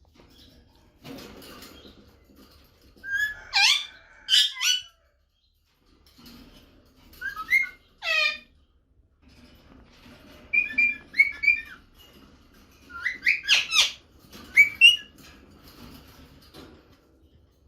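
Rose-ringed (Indian ringneck) parakeet calling: sharp, screechy squawks in four short bursts a few seconds apart, some falling steeply in pitch.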